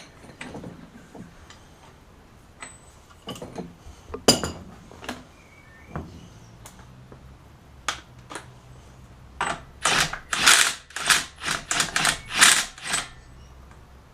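Hand tools clicking and knocking against the wheel hub, then about eight quick rattling ratchet strokes near the end as the front axle nut is wound loose.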